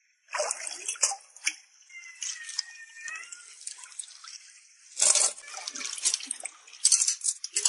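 A hand splashing and scooping in a shallow tank of seawater, picking out sea snails, with water dripping and pouring off the hand. The splashes come in irregular bursts: near the start, about five seconds in and again near the end.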